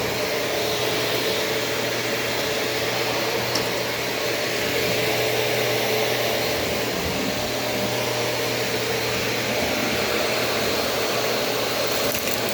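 Shark Navigator upright vacuum cleaner running steadily: an even rush of air with a constant motor hum.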